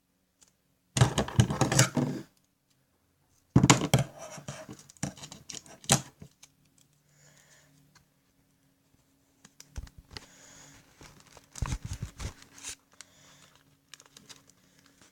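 Sellotape and paper being handled: several bursts of crackling and tearing as tape is pulled off and pressed down onto the folded paper.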